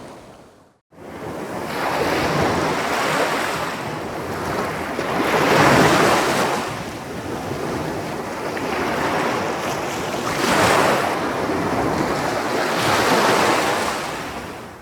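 Ocean waves washing in and breaking, swelling and ebbing in repeated surges a few seconds apart. The sound fades out and drops to silence for a moment about a second in, then resumes. The loudest surges come around the middle and again later.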